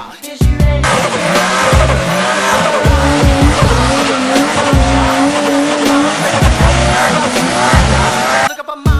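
Car tires squealing, a loud wavering screech that starts about a second in and cuts off suddenly near the end, over a hip hop beat.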